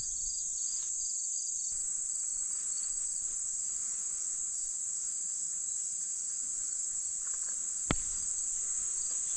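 Dense chorus of crickets, one continuous high-pitched trill that holds steady; a single short click sounds about eight seconds in.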